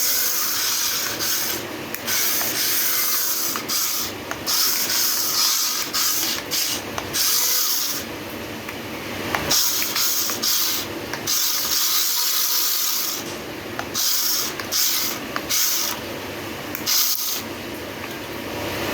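Toy remote-control stunt car's small electric motors whirring in repeated bursts as it is driven, stopping and starting every second or so, with its wheels rubbing on the surface.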